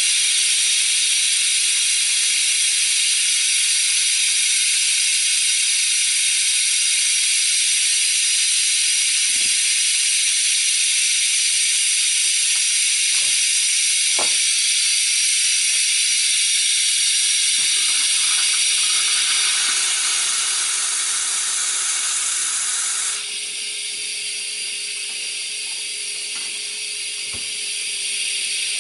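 Steady hiss of steam escaping from a 1996 brass La Pavoni lever espresso machine as its boiler heats toward operating pressure, dropping in level near the end. A few short metallic clicks and knocks as the portafilter is taken out and locked into the group head.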